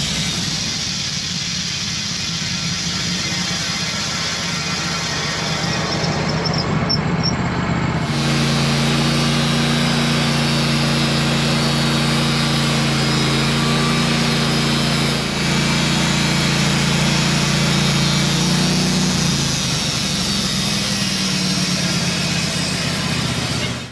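Wood-Mizer portable bandsaw sawmill running, its engine note steady with a high, thin whine above it. About eight seconds in the engine note grows stronger. The sound stops abruptly near the end.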